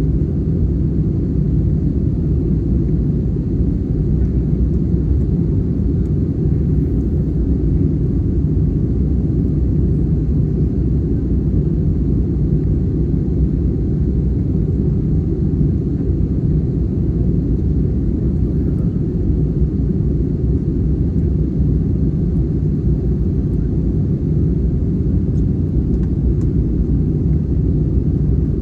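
Steady low rumble of engine and airflow noise inside the cabin of an Airbus A320neo with Pratt & Whitney PW1100G geared turbofans, on approach.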